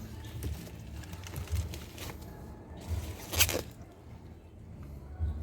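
Handling noise of parts being refitted: rustling and crinkling, low bumps, and one short louder scrape about three and a half seconds in.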